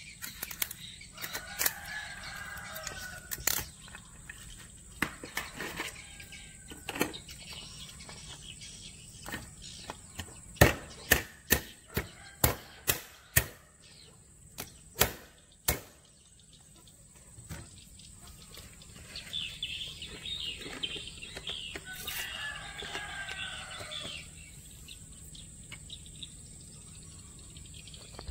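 Knife chopping through raw crabs on a wooden cutting board, then a run of about nine sharp knocks from about ten seconds in as a stone cracks the crab claws. Birds chirp in the background, twice.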